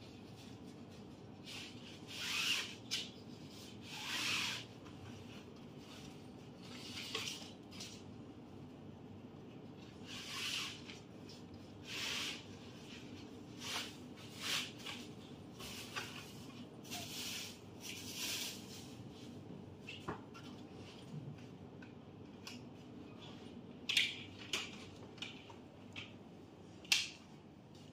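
Fabric sleeve of a bed rail panel rustling and swishing as plastic tubes are pushed and slid through it, in repeated short swishes. Near the end come a few sharp plastic clicks as the frame's hinged joints are handled and fitted.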